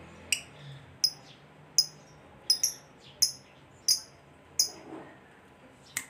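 Fischer's lovebird giving short, sharp, high-pitched chirps at a steady pace, about one every three-quarters of a second, some of them doubled.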